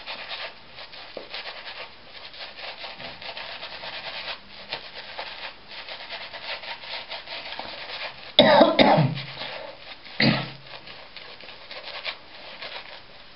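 Mühle finest badger shaving brush rubbing and swirling shaving-soap lather over a stubbled face with a fairly dry brush, a continuous scratchy brushing. Two loud coughs break in, about eight and a half and ten seconds in.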